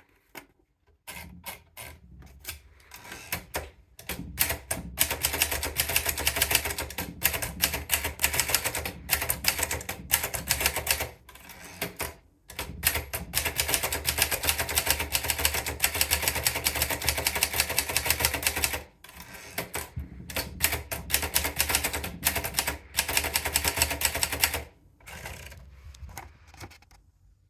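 Gracia de Luxe typewriter being typed on: fast runs of keys striking, with short breaks between runs and quieter, sparser strokes near the end.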